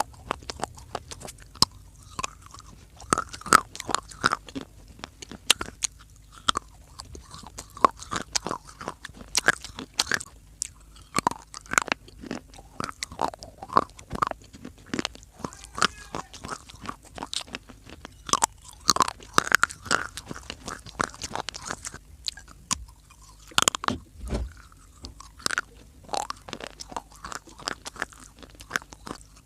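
A person biting and chewing pieces of clay close to the microphone: irregular sharp crunches and cracks that come thick and fast throughout.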